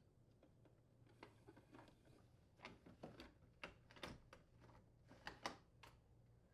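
Faint, scattered plastic clicks and knocks as the auger motor assembly is worked out of the refrigerator's ice compartment, about a dozen light taps spread over several seconds.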